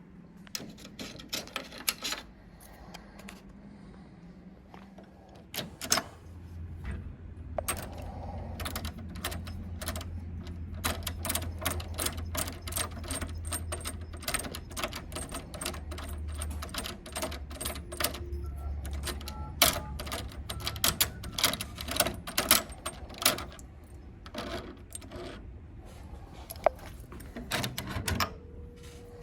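Hand tools and lock hardware being handled: many quick, irregular clicks and small metallic knocks, with a low steady hum from about 7 s to 18 s in.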